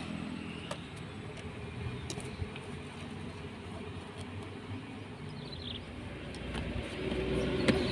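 A motor engine hums steadily in the background and grows louder near the end, with a few faint clicks of things being handled.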